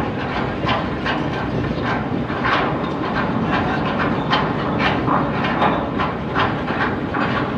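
Heavy steel anchor chain being hauled across a ship's deck, its links clanking and scraping in a rough rhythm of about two to three clanks a second over a steady low rumble.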